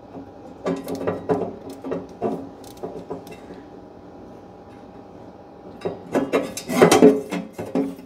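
Hand tools knocking, clicking and scraping on the sheet-metal back of a wood stove while the blower motor's mounting screws and bracket are worked loose. A short run of clicks and knocks comes about a second in, then a louder, busier run of knocks and scraping from about six seconds on.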